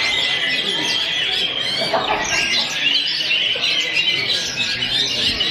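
Several caged oriental magpie-robins (kacer) singing over one another, a dense unbroken tangle of whistles, trills and chirps.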